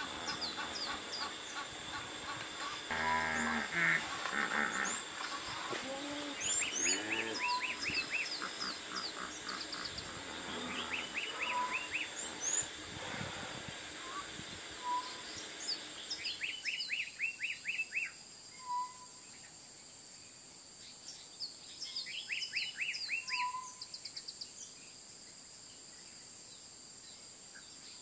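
Wild birds calling around a waterhole: repeated runs of quick, falling chirps and a short whistle that recurs every few seconds, over a steady high hiss. A short burst of noise comes about three seconds in.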